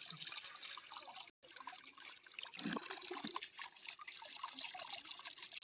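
Steady hiss of rain falling, with water trickling. The sound cuts out completely for a moment just over a second in.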